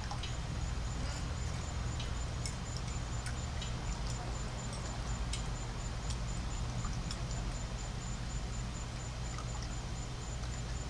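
Light clicks and taps of chopsticks and a spoon against small bowls while eating, over a steady low outdoor hum.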